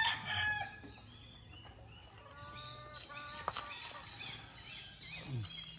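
The end of a rooster's crow trails off in the first half second. After a quieter stretch, a second, fainter fowl call comes about two and a half seconds in, with small birds chirping lightly behind it.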